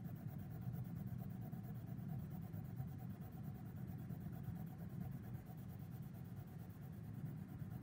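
Graphite pencil lead (2B, in a lead holder) scratching steadily on drawing paper in quick back-and-forth shading strokes, pressed hard to lay down the darkest value the lead will give.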